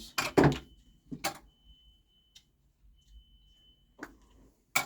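Plastic caps being taken off steel monitor arms: sharp plastic clicks and knocks, the loudest just after the start, another about a second in, and a few more near the end.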